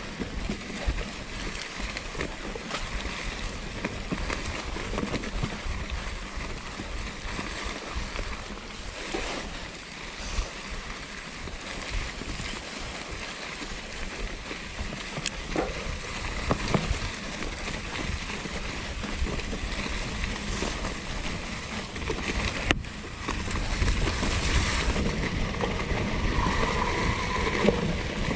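Mountain bike rolling along a dirt trail: the plus-size tyres of a 2016 Norco Torrent hardtail making a steady rushing noise, with scattered knocks and rattles from the bike over bumps. The noise gets louder for the last few seconds.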